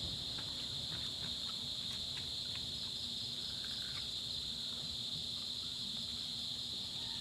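A steady, high-pitched chorus of chirping insects, with a faint low hum underneath and a few light clicks.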